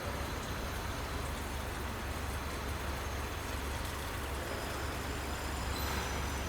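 Steady workshop machinery noise: a constant low hum under a broad hiss.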